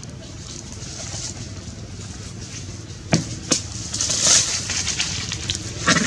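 Dry leaves crackling and rustling under monkeys moving on leaf litter. There are sharp cracks about three seconds in, again half a second later and near the end, with a longer crackly rustle in between, over a low steady background rumble.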